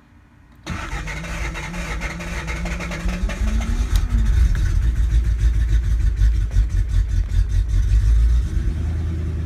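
Lexus SC400's 4.0-litre V8 starting up with its repaired engine computer: it comes to life suddenly about a second in, runs at raised, unsteady revs, then settles to a lower steady idle near the end.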